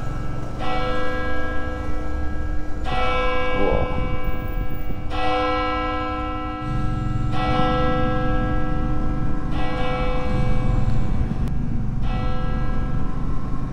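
A single church bell tolling slowly, six strokes about two and a half seconds apart, each one ringing on, over a steady low rumble.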